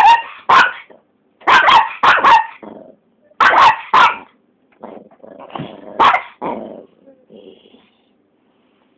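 Dogs barking at a cat in short clusters of sharp barks. The barks are loudest over the first four seconds and grow quieter after that, dying out about three-quarters of the way through.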